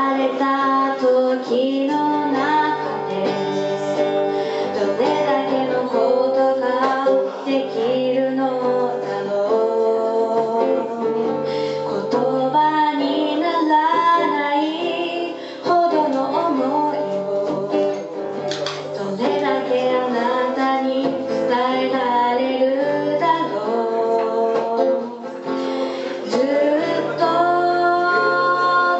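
A woman singing live into a handheld microphone, accompanied by an acoustic guitar.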